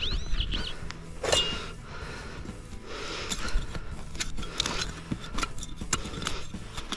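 A small hand digging tool scraping and jabbing into soil in a hole, a run of short scrapes and knocks. A bird chirps a few times at the very start.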